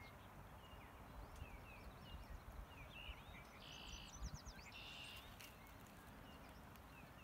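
Faint riverside ambience: songbirds give short chirps throughout, with two buzzy calls about four and five seconds in, over the steady rush of a flowing river and a low rumble.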